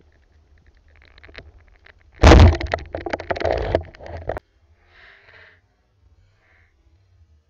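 Speargun fired underwater: a sudden loud crack about two seconds in, followed by about two seconds of clattering, bubbling noise that cuts off suddenly.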